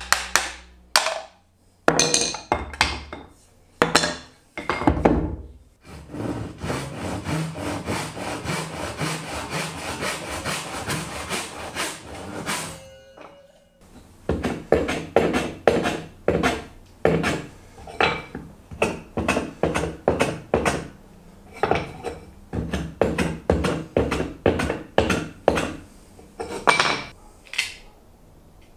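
Hand tools working wood. There are several sharp knocks in the first few seconds, then about six seconds of fast, continuous scraping strokes, then a long run of regular strokes about two a second.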